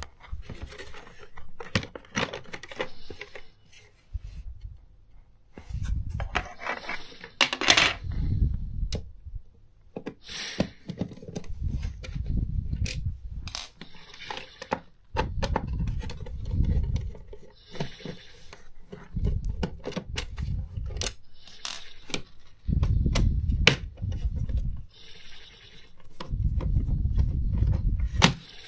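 Screwdrivers working on the plastic housing of a cordless vacuum's powered brush head as it is taken apart: irregular clicks, scrapes and rattles of metal tools on plastic, with handling bumps from the head being moved on the floor.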